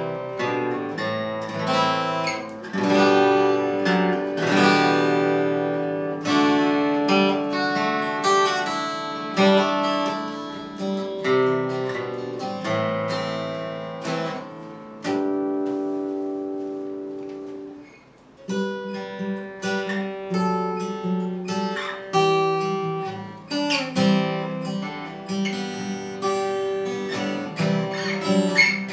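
Martin 000-42 steel-string acoustic guitar played fingerstyle, picked notes and chords ringing out. About two thirds of the way through a chord is left to die away, then the picking starts again.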